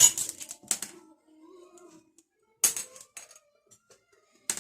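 Candy sprinkles rattling as they are shaken out of their container onto a cake, a quick run of clicks in the first second, then two single sharp clicks later.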